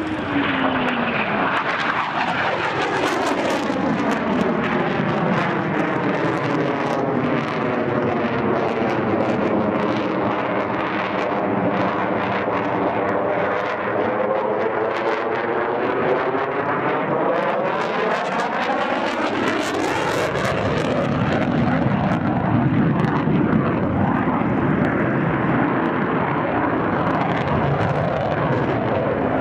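Jet noise from an RAF Eurofighter Typhoon's two EJ200 turbofans as it flies a display. The sound is loud and continuous, with a phasing sweep that falls and then climbs back over about twenty seconds, and it turns crackly early on and again near the twenty-second mark.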